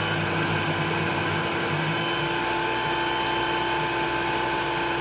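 YAMAZEN KSC-960D cordless cyclone vacuum cleaner's motor running steadily with a high whine.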